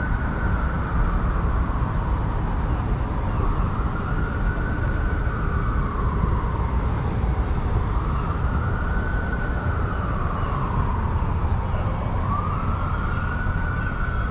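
Emergency vehicle siren wailing, slowly rising and falling about every four and a half seconds, over a steady low city rumble.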